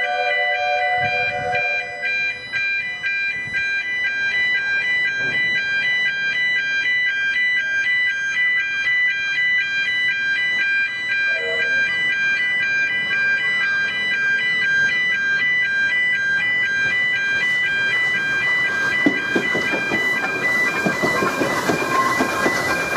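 Level crossing warning alarm sounding steadily, an electronic alarm tone that pulses rapidly on and off. From about eighteen seconds in, the noise of the NGG16 Garratt steam locomotive crossing the road builds beneath the alarm: its chuffing exhaust and wheels on the rails.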